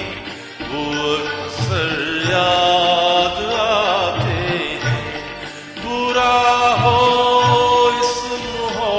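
Instrumental interlude of a Hindi film-song backing track: a melodic line over a steady hand-drum beat.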